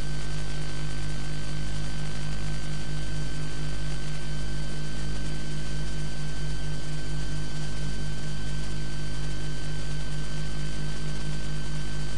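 Steady electrical hum and buzz with faint thin high whines, the low buzz pulsing slightly and regularly, on the soundtrack of a broadcast station-ident card.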